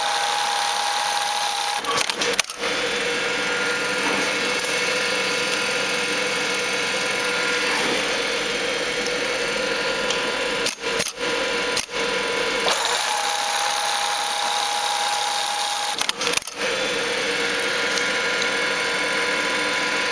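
Pfaff 3338 automatic lockstitch bartack machine running steadily, sewing bartacks in denim, with brief breaks in the sound a few times.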